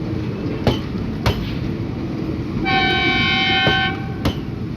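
Train rolling slowly past, its wheels clicking over rail joints a little more than once a second over a steady rumble. Past the middle comes one steady high-pitched tone lasting about a second.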